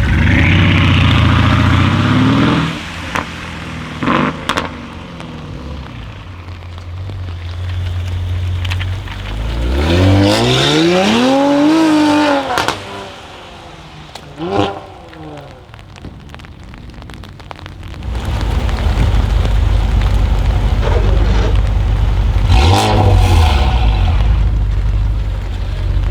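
Mercedes GLE43 AMG's twin-turbo V6 through an aftermarket Armytrix exhaust: loud engine at the start, a few sharp exhaust cracks around three to four seconds in, then a rev that rises and falls near the middle followed by a quick blip. Over the last third the engine runs loud and steady, with another rev peak near the end.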